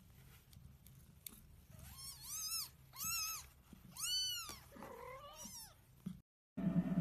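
Cat meowing: a run of short, high meows that rise and fall in pitch, the loudest in the middle, followed by a couple of lower drawn-out ones, over a low steady rumble.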